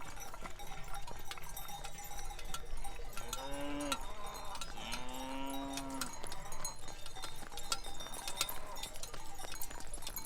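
Many cowbells on a herd of walking cattle clanging unevenly and continuously. Two drawn-out calls rise and fall in pitch about three and five seconds in, the second one longer.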